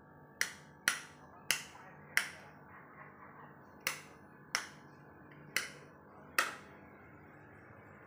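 Eight sharp clicks in two groups of four, unevenly spaced, each with a short ring-out, over a faint steady low hum.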